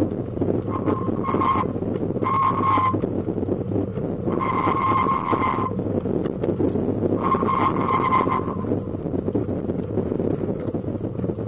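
Bicycle and pet-stroller wheels rolling on asphalt, a steady rattling rumble, with a thin high squeal that comes and goes about five times, each lasting from half a second to a second and a half.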